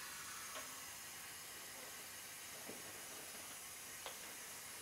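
Steady hiss of oxygen flowing at 15 liters per minute from a cylinder regulator into a non-rebreather mask, with a few faint light taps as the mask is handled.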